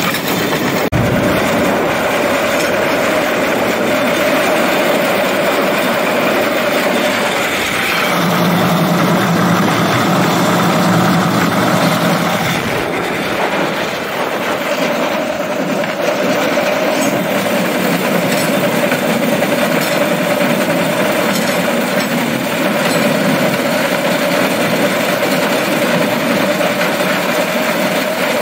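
Small rail cart rolling along railroad track, with steady wheel-on-rail noise and a small engine running.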